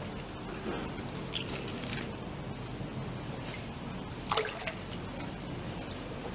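Canal water dripping and sloshing around a magnet-fishing magnet and its catch held at the waterline. About four seconds in there is a brief high squeak that falls in pitch.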